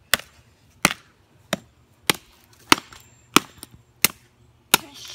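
Wooden-handled hammer striking an iPod lying on dirt and grass, smashing it to pieces: eight sharp blows at an even pace, about three every two seconds.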